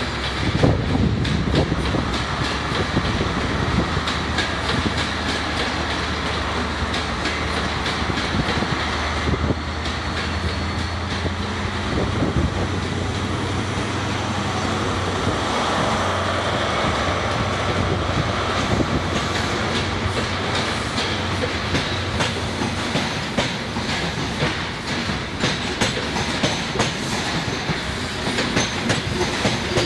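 Class 43 HST power car's MTU diesel engine running under power as the train pulls out and passes close by. The steady engine note fades after about twenty seconds, leaving the clickety-clack of the passenger coaches' wheels over the rail joints.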